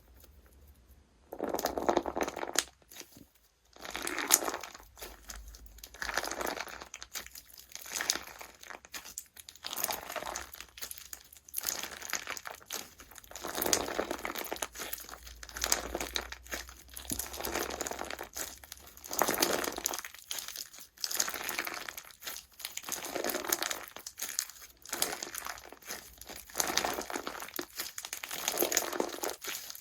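Slime being squeezed and kneaded by hand, each press giving a crackling, crinkly squish, in repeated strokes about one every one and a half to two seconds.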